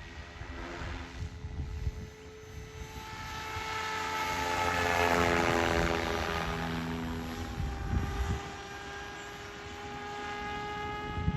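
SAB Goblin 700 Raw electric RC helicopter in flight: the whine of its rotors and drive, made of several steady tones, swells as it comes close, is loudest about halfway through, then fades.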